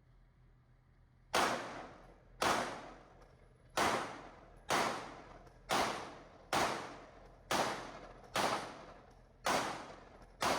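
Ten 9mm pistol shots fired at a steady pace of about one a second during a competition stage, each shot followed by a short echoing tail.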